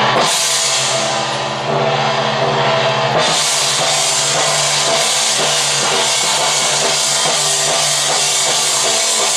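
Taiwanese temple-procession percussion music of drums and cymbals over sustained held tones, accompanying the Zhong Kui dance. Cymbals crash in at the start and again about three seconds in, then a steady drum beat carries on under ringing cymbals.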